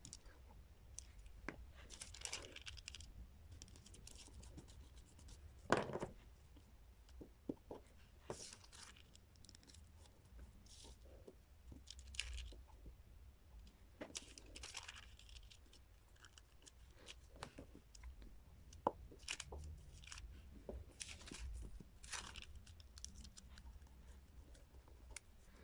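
Faint rustling and scraping of thin tissue paper as a glue stick is rubbed over it and the pieces are smoothed and pressed down by hand, in short irregular strokes, with one louder thump about six seconds in.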